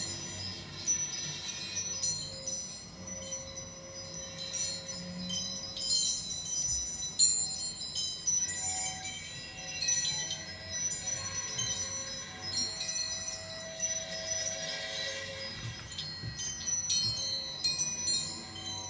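Free-improvised experimental music: a loose scatter of high, chime-like ringing tones, with a few long held notes in the middle range coming and going.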